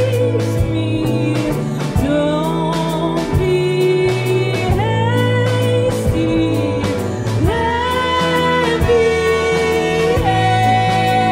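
Live band music: a woman sings long held notes that slide between pitches, over electric guitar, bass and drums.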